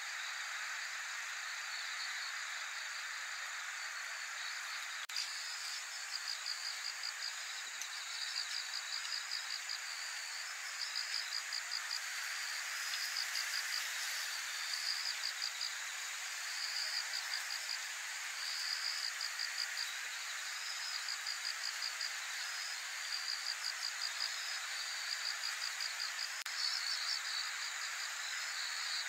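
Insects chirping: short pulsed trills repeated in bursts every second or two, starting a few seconds in, over a steady high-pitched hiss.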